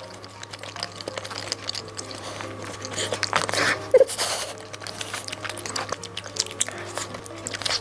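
Close-up eating sounds of someone biting and chewing rice cake, with many short wet clicks and smacks and a sharper one about four seconds in, over soft background music.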